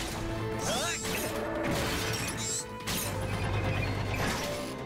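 Animated fight sound effects over background music: cartoon robots being smashed and exploding, with metallic crashes and quick sliding whooshes.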